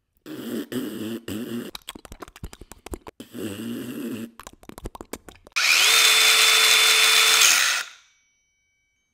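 Clattering and rapid clicks as tools are handled, then an electric power drill runs at steady speed for about two seconds, spinning up quickly and winding down to a stop.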